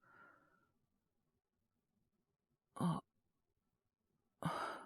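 A man's voice giving two short coughs, one about three seconds in and a louder one near the end, with a faint breath at the start. They are acted coughs of a man coming down with a cold.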